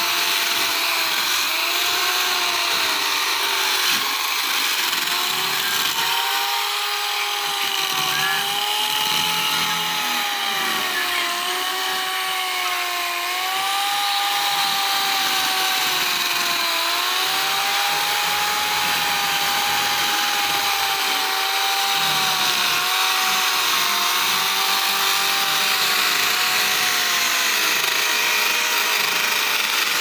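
Handheld electric power tools with sanding discs running against carved wood. The motor whine sags and recovers in pitch again and again as the discs are pressed into the wood.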